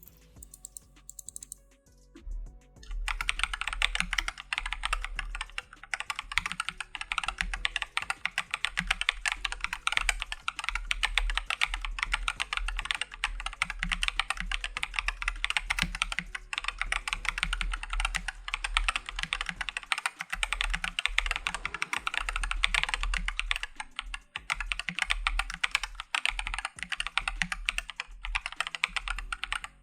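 Typing on an AKKO 3087 RF mechanical keyboard with Akko V3 switches: a fast, dense run of keystroke clicks that starts about three seconds in and thins briefly about two-thirds of the way through.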